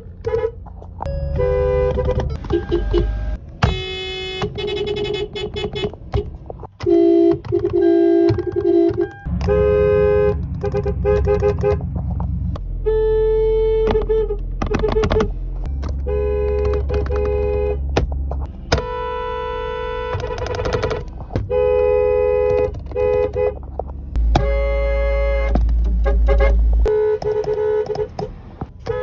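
A string of car horns honking one after another, each a steady two-note chord held from a brief toot to a few seconds, changing abruptly from one horn to the next, with low traffic rumble underneath.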